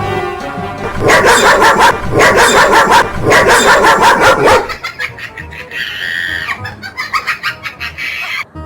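Fake dog barking played from a small electronic sound box: three loud bursts of rapid barks, then quieter mixed sound in the second half.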